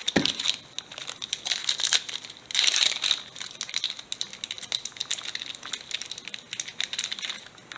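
Foil wrapper of a Pokémon trading card booster pack being opened by hand, the foil crinkling in quick, irregular crackles, louder for a moment about three seconds in.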